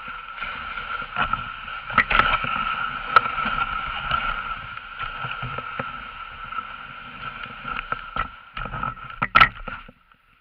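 Dog sled running over snow behind its team: a steady hiss and rumble of the runners, with scattered knocks and rattles from the sled. It cuts off suddenly near the end.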